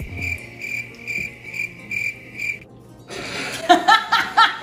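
An electronic kitchen timer beeping, a high tone pulsing about twice a second, that stops after about two and a half seconds; the beeps mark the ravioli's cooking time being up. Right after, a woman laughs loudly.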